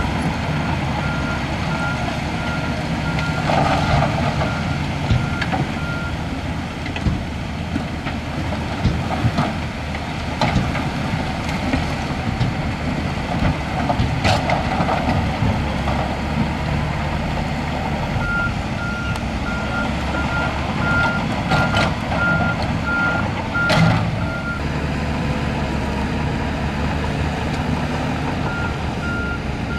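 Heavy earthmoving machine's diesel engine running steadily under a reversing alarm that beeps about twice a second in spells: at the start, again past the middle, and near the end. A few sharp knocks stand out over the engine.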